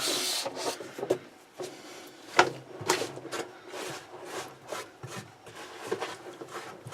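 Scattered clicks, knocks and rubbing of hands and tools working on washing-machine parts, with a brief hiss at the start.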